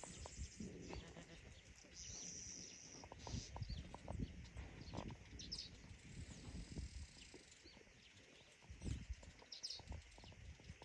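Goats bleating, with irregular knocks and shuffling around them.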